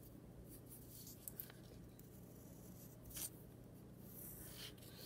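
Faint pencil strokes scratching on paper: a handful of short scratches, the clearest about three seconds in and another near the end.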